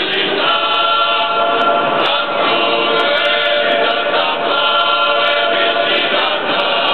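Unaccompanied choir singing Georgian Orthodox liturgical chant in several voice parts, holding chords that shift every two seconds or so.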